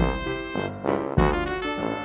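Background music: a jazzy tune with brass and keyboard over a bass line.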